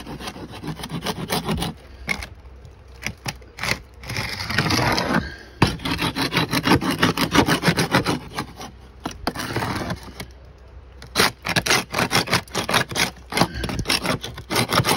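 Paint scraper on a long wooden handle pushed hard in rapid repeated strokes along weathered wooden clapboard siding, rasping off old cracked, flaking paint. The strokes come in runs of a few seconds, pausing briefly about two seconds in and again about ten seconds in.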